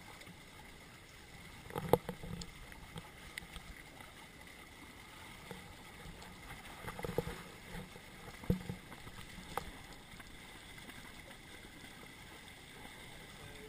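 Water rushing along a Hobie Cat catamaran's hull under sail, heard close from a camera mounted on the boat, with a few sharp knocks: the loudest about two seconds in, more around seven to nine seconds.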